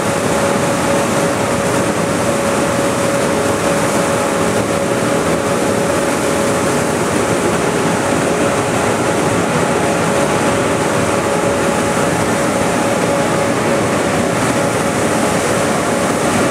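Air-O-Fan berm blower, a large fan driven off the tractor's power take-off, running together with the tractor engine: a loud, unbroken rush of air with a constant tone running through it.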